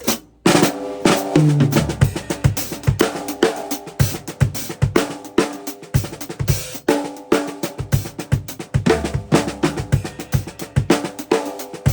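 Acoustic drum kit played in a busy groove with fills: rapid snare and bass drum hits with ringing drum tones, starting with a loud hit about half a second in.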